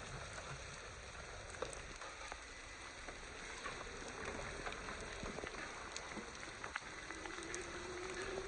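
Steady rain falling, with individual drops ticking sharply against it. A faint steady hum comes in near the end.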